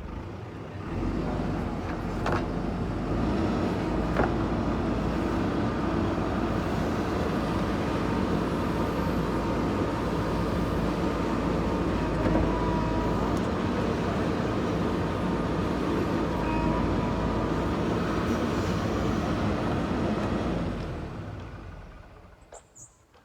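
A diesel engine running steadily under load. It comes up within the first second and fades away over the last couple of seconds.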